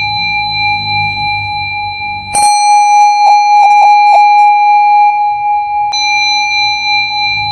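A steady ringing, bell-like tone holding a few pitches at once over a low rumble. About two and a half seconds in, a sharp strike adds a louder, brighter ring with a brief wavering pulse, which stops around six seconds in as the rumble returns.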